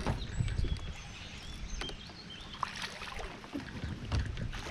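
Wind buffeting the microphone on a fishing kayak on the water, with a sharp knock at the start and scattered light taps and ticks.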